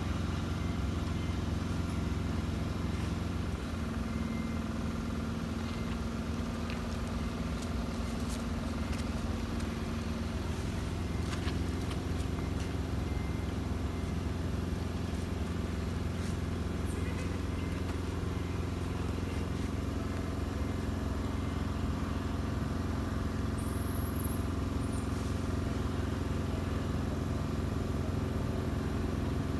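A steady low mechanical hum, like a motor running, with a few faint clicks.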